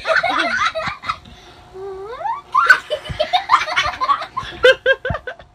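Baby giggling and laughing in quick high-pitched bursts, with a rising squeal about two seconds in, followed by another run of laughter.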